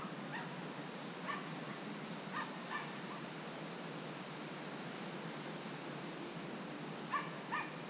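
Steady outdoor hiss with a few short, distant animal calls, coming singly and in quick pairs, the last pair near the end.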